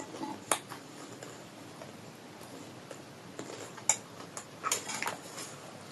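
A few sharp, wet clicks and smacks from someone eating and chewing, spaced irregularly over faint room tone.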